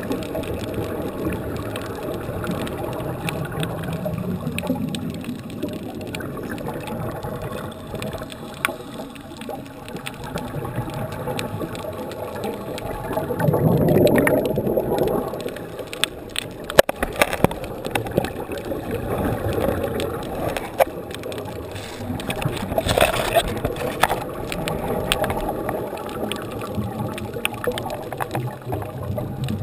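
Underwater sound of a scuba diver's exhaled air bubbling through the regulator, muffled as heard by a camera in its housing. The bubbling swells louder about halfway through and again a couple of times later.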